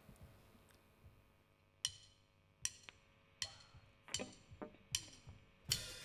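Quiet, sharp wooden clicks: four evenly spaced, then a few more near the end, drumsticks tapped together counting the band into the song.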